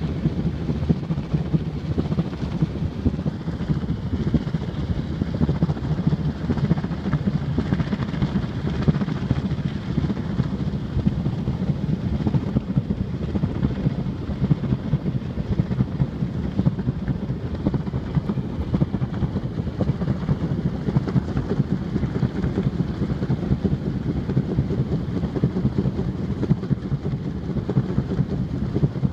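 Helicopter running close by: a loud, steady low drone with rapid flutter, and a faint high whine from about three seconds in.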